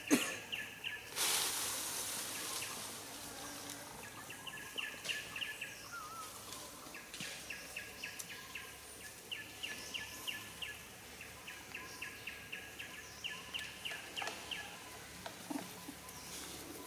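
Outdoor woodland ambience: a rapid chirping call, about five chirps a second, repeating in runs of one to two seconds. A rush of noise starts about a second in and lasts a couple of seconds.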